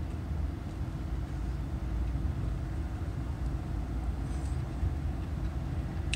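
Steady low rumble inside a stationary car's cabin, the sound of the car idling.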